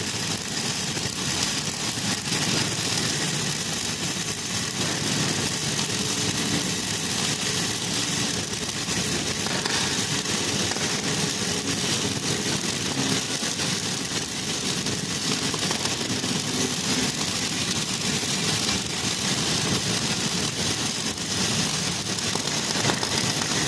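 Steady engine-like mechanical running noise with a constant hiss over it.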